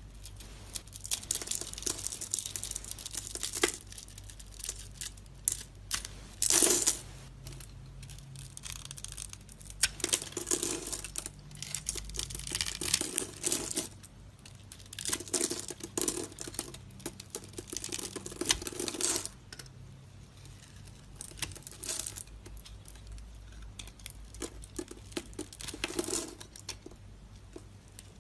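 A knife cutting and carving bars of soap: crackly scraping strokes in several runs of one to four seconds, with short pauses between them.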